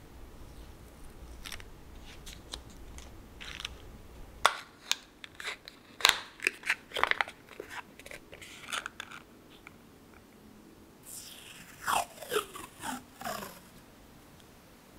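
Washi tape and its paper packaging handled close up, with crinkly clicks and crunches. Near the end a strip of washi tape is pulled off its roll with a short crackling rasp.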